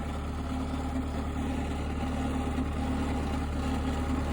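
Bobcat skid steer's diesel engine idling steadily.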